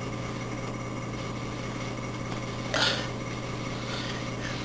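Steady low hum of background room or recording noise, with one brief rustling knock nearly three seconds in.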